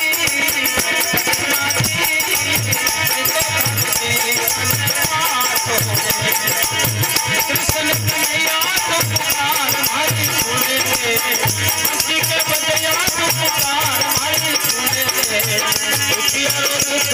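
Harmonium melody over a steady dholak beat, with a rattling, jingling hand percussion running on top.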